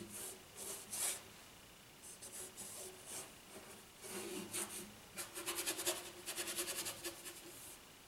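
Paintbrush scrubbing oil paint onto a canvas, heard as scratchy strokes. About five seconds in they turn into a quick run of short dabbing strokes.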